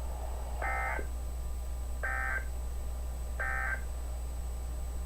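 Emergency Alert System end-of-message code on NOAA Weather Radio: three short, identical bursts of screechy data tones, about a second and a half apart, signalling the end of the alert.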